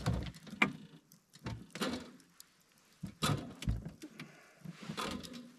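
Wire racks of an electric smoker knocking and rattling against its metal cabinet as salmon are loaded onto them: a string of short clatters and scrapes with brief pauses between.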